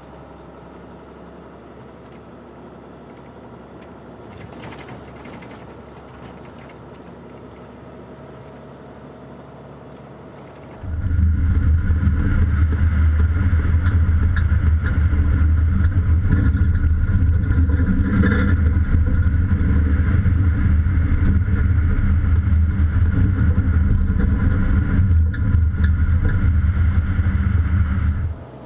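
Volvo FH16 heavy-haulage truck driving at town speed, its engine droning steadily as heard inside the cab. About 11 seconds in the sound turns much louder and deeper: the engine, exhaust and road noise heard close up from the open trailer deck, until just before the end.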